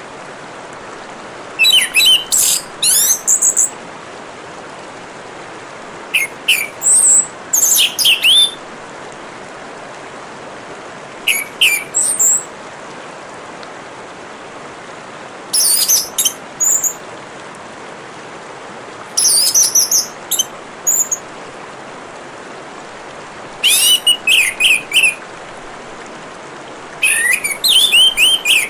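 Orange-headed thrush singing short bursts of rapid, varied chirps and whistles, one phrase about every four seconds, over a steady hiss of trickling water.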